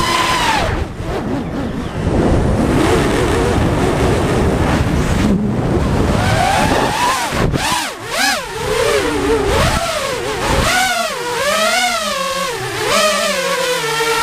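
Drone's electric motors and propellers whining, the pitch swooping up and down again and again as the throttle changes. For several seconds near the start the whine sinks under a rushing noise of air while the drone dives, then returns clearly.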